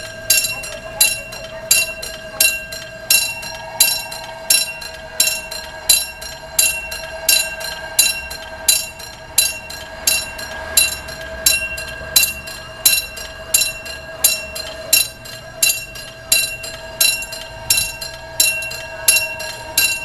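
Railway level-crossing warning bell striking steadily about twice a second, each ding ringing on into the next: the crossing signal warning of an approaching train.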